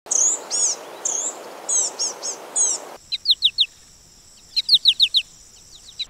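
Songbird calls. First comes a string of short, high, arched chirps over a steady hiss. After an abrupt change about halfway, there is a thin, steady high tone with two quick runs of descending whistled notes.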